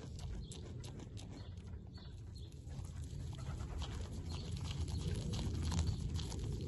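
Young goat biting and chewing a crisp Swiss chard leaf: a run of short crunching clicks that grows denser in the second half, over a steady low rumble.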